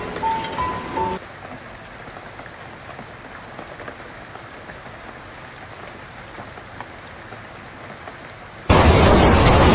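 Light rain falling steadily, an even soft patter with faint drop ticks, after a few held music notes end about a second in. Near the end a much louder steady rushing noise cuts in suddenly.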